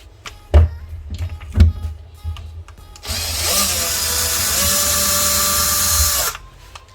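Two sharp knocks, then a cordless drill spins up and runs steadily for about three seconds driving a hinge screw into the cabinet wood, then stops.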